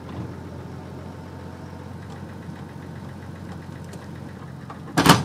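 Pickup truck engine idling steadily. Near the end there is one short, loud metal clank from the trailer hitch.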